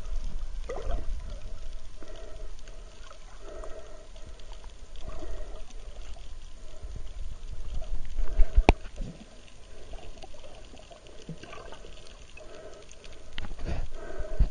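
Muffled water noise picked up by a camera held underwater while snorkeling: a steady low rumble and sloshing, with a hollow muffled sound coming back every second or so. A sharp knock sounds about eight and a half seconds in.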